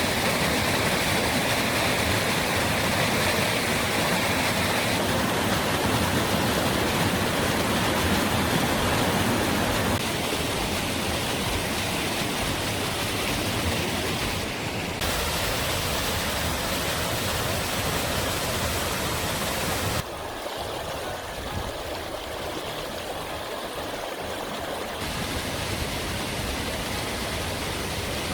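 Waterfall rushing steadily, an even noise of falling water whose loudness and tone shift abruptly every five seconds or so.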